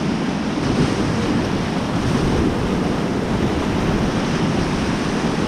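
White-water river rapids rushing steadily around an inflatable raft, with wind buffeting the microphone.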